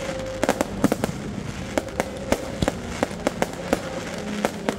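Fireworks display going off in rapid, irregular succession: sharp bangs and cracks, several a second.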